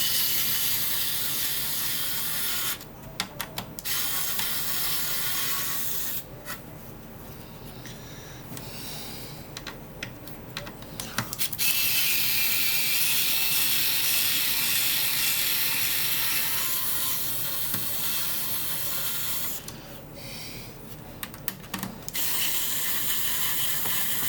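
Screwdriver backing screws out of the TRS-80 Model 100's circuit board: a ratcheting mechanical sound in several runs, the longest about eight seconds, with short pauses between them.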